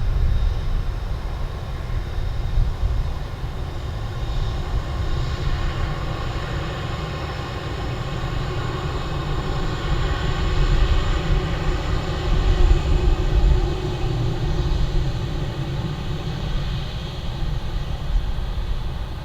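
Jet airliner engines running: a steady low rumble with a whine of several steady tones above it, swelling a little about halfway through.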